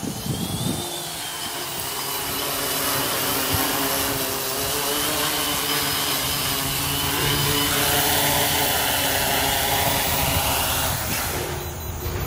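X500 quadcopter's four Sunnysky 980KV brushless motors and propellers humming steadily, with a high whine, louder as it comes in to land, then winding down near the end once it sets down on the pad.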